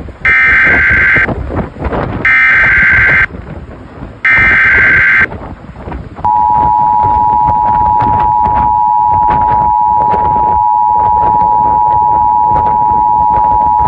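Emergency Alert System tones: three one-second bursts of the SAME digital header's warbling data screech, then the steady two-tone EAS attention signal (853 and 960 Hz) starting about six seconds in. Together they announce a tornado warning.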